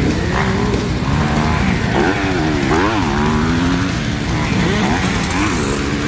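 Dirt bike engine revving up and down over and over as the throttle is worked through a run of jumps. There is a deep drop and climb in pitch about halfway through.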